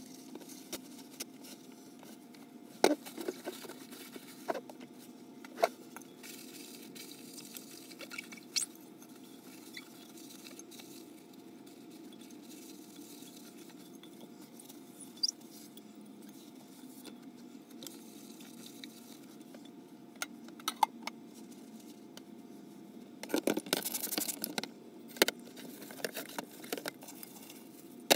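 Paper towels wiping and rubbing a crock pot dry, with scattered light knocks and clicks of the pot being handled and a busier burst of rustling and clatter a little before the end.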